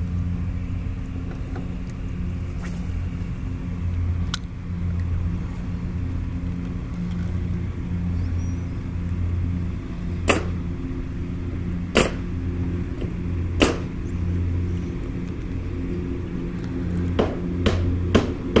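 A boat motor hums steadily with a slow, regular throb. A few sharp clicks sound in the middle, and a quicker string of them comes near the end.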